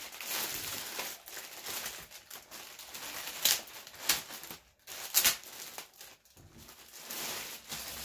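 Packaging crinkling and rustling as a new sling bag is handled and unwrapped, with a few sharper, louder rustles in the middle.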